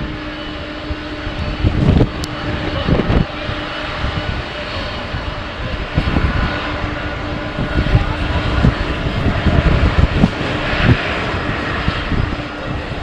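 Jet airliner engines running, a steady rushing noise that swells about ten seconds in, with strong wind buffeting the microphone in irregular low thumps throughout.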